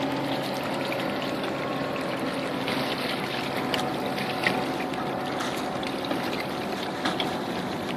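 Steady drone of a distant boat engine on the river, slowly fading, over a constant wash of water along the shore rocks, with a few light clicks and knocks.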